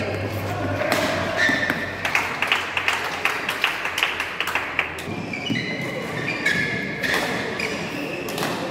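Badminton play in a sports hall: rackets striking the shuttlecock and thuds of footsteps, a rapid run of sharp hits, mixed with short high squeaks of shoes on the court floor.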